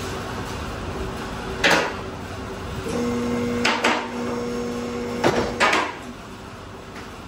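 The electric hydraulic pump motor of a two-post car lift runs with a steady hum for about two and a half seconds, in the middle of the stretch, while the lift arms raise a load. Several sharp metal clacks come from the lift and load, the loudest sounds here, one just before the motor starts, two while it runs, and two more as it stops and just after.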